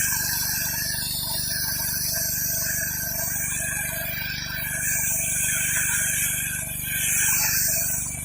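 Gas pressure washer running steadily, its engine humming under the hiss of the high-pressure water jet on concrete; the spray hiss rises and falls in waves.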